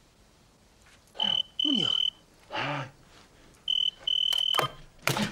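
Desk telephone ringing with an electronic trill, a short beep then a longer one, twice: once about a second in and again near four seconds. A sharp click near the end as the handset is lifted.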